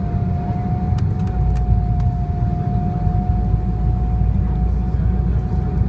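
Airliner cabin noise on approach to land: a steady low rumble of the jet engines and airflow with a constant high whine, the rumble growing a little heavier about a second in.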